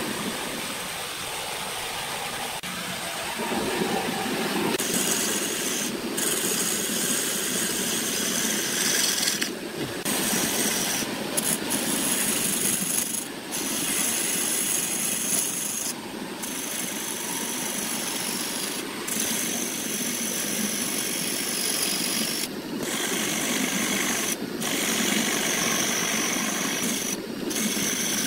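Wood lathe running with a turning tool or abrasive rubbing against the spinning wood: a steady scraping hiss, broken by brief dips every few seconds.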